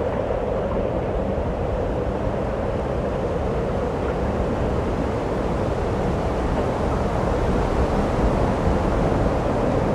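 Steady rushing noise with a gusty low rumble, wind buffeting the microphone outdoors.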